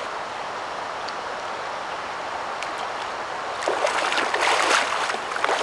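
Steady rush of river current, then, about two-thirds of the way in, a hooked chinook salmon thrashing and splashing at the surface in a burst of irregular splashes.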